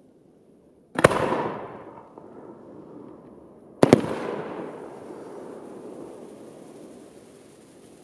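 Two aerial firework shells bursting, about three seconds apart. Each is a sharp, loud boom followed by a long echo that fades over a couple of seconds.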